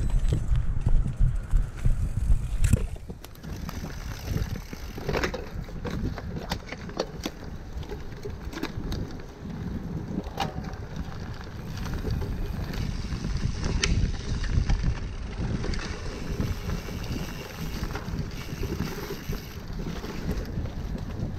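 Wind buffeting a handlebar-mounted camera's microphone as a cyclocross bike rides a bumpy dirt trail, with the bike rattling and giving sharp knocks over bumps every few seconds. The rumble is heaviest for the first few seconds, then eases.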